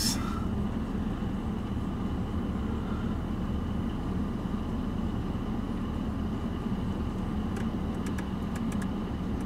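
BMW 540i's turbocharged inline-six idling, heard as a steady low hum from inside the cabin. A few light clicks come near the end as the iDrive controller is turned through the menus.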